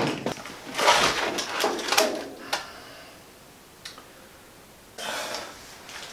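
Steel tape measure being pulled out and handled against metal: a run of clicks and scraping rattles in the first two and a half seconds, a single click near four seconds, and a short rasp about five seconds in.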